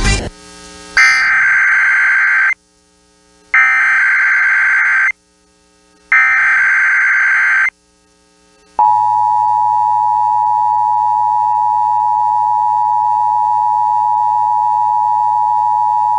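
Emergency Alert System test: three identical bursts of SAME digital header data, each a warbling buzz about a second and a half long, separated by short gaps. About nine seconds in, the long steady warning alarm tone starts and holds.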